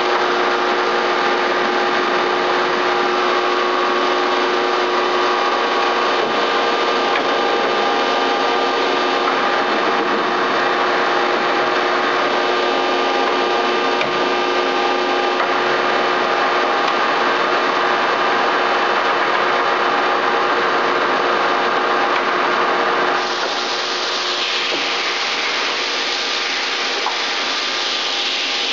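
Bullard heavy-duty CNC vertical turning lathe running under power: a steady mechanical hum with several held tones under a scraping, rasping noise. About 23 seconds in the sound changes abruptly to a brighter hiss.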